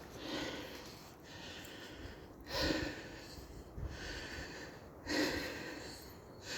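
A walker breathing heavily and rhythmically, out of breath from hiking, with a loud in-or-out breath about every second and a quarter.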